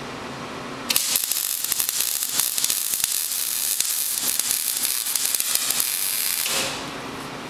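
Arc welding on a steel-tube frame: the arc strikes about a second in and crackles and sizzles steadily for about five and a half seconds, then stops.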